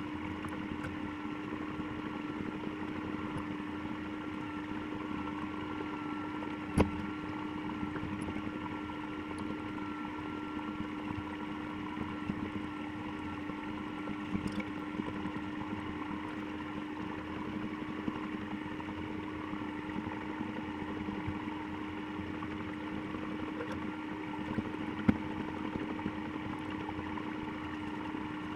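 Komatsu hydraulic excavator's diesel engine running steadily at a constant pitch, with two sharp knocks, about seven seconds in and again later.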